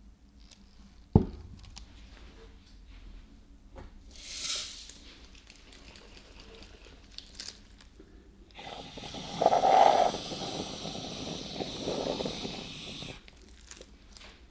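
Aerosol whipped-cream can spraying in a sputtering hiss for about four seconds, loudest near its start; earlier a sharp click and a brief short hiss.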